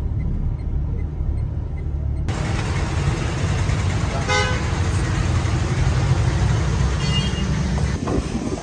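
Road traffic rumble with a short car-horn toot about four seconds in and a fainter toot near seven seconds. The sound changes abruptly from a low rumble to a brighter, fuller traffic noise about two seconds in.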